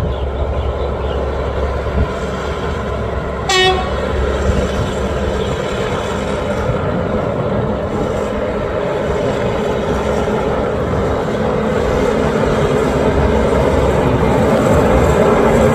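Diesel train running and growing steadily louder, with one short horn toot about three and a half seconds in.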